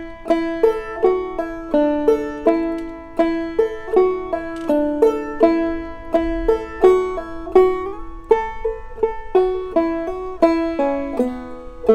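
Five-string banjo played clawhammer style in gDGBD tuning, capoed at the second fret, in the key of A: the A part of an old-time tune in a steady, driving bum-ditty rhythm of single melody notes and brushed strums, with pull-offs, slides and hammer-ons.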